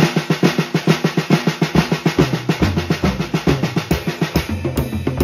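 Swiss Army triplets, a flam-and-tap drum rudiment, played on a drum kit at medium tempo as a steady, even run of strokes. Bass drum notes join in about two seconds in.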